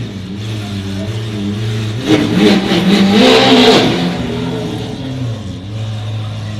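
A supercar engine idling with a steady low note, revved once about two seconds in: the pitch climbs and falls back over roughly two seconds before it settles to idle again.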